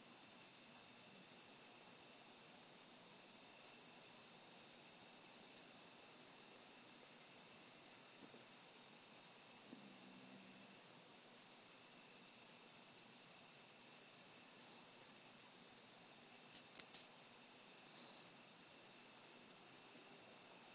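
Faint, steady chirring of night insects such as crickets, with a few short clicks scattered through it, the loudest cluster about seventeen seconds in.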